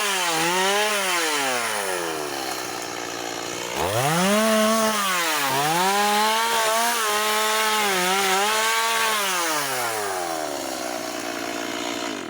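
Chainsaw cutting firewood, its engine revving up and down: it drops back about two seconds in, climbs again, holds high in the middle, then slows toward idle near the end.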